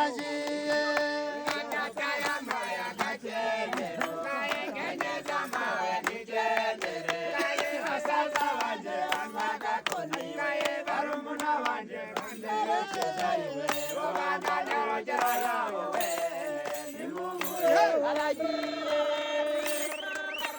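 A group of voices singing and chanting together in traditional Rwandan song, with steady percussion beating time.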